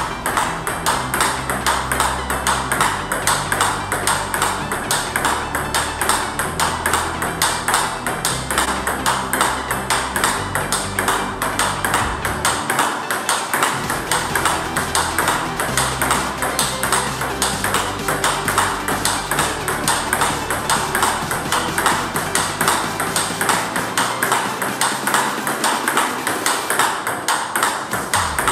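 Table tennis ball in a continuous forehand topspin rally: sharp, even clicks as the ball is struck by the two rubber-faced paddles and bounces on the table, several a second without a break.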